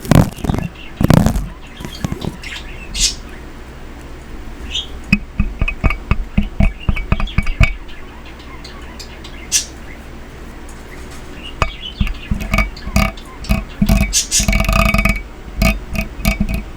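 A run of light knocks, taps and clicks from small craft items being handled. A pet bird gives a squawking call near the end.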